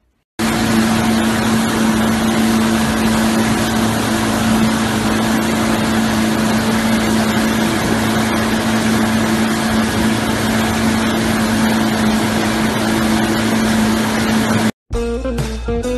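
Motorboat engine running at a steady speed while towing, a constant hum under the rush of water and wind. It cuts off abruptly near the end.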